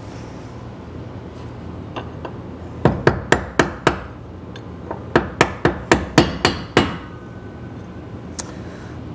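A hand hammer striking the steel front-end parts of an old Chevrolet pickup: two quick runs of sharp metallic blows, about five and then about seven, with a few lighter taps between.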